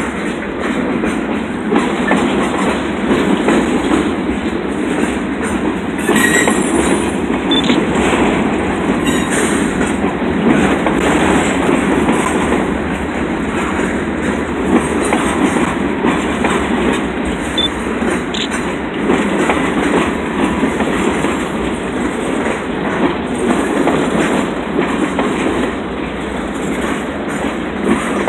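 Freight train of boxcars rolling past, a steady rumble and rattle of steel wheels on the rails, with a couple of brief, faint wheel squeals.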